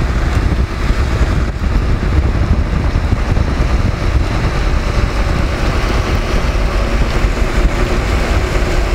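Wind buffeting the microphone during a storm outflow: a steady, heavy low rumble under a rushing hiss.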